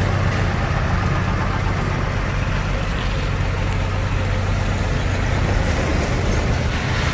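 Kubota DC-70 combine harvester's diesel engine running steadily with a low, even hum as the machine is driven on its tracks across a truck bed.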